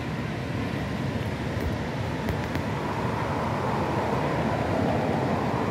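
Steady roar of the flooding Ewaso Nyiro River, with a car passing on the bridge that swells in from about three seconds in.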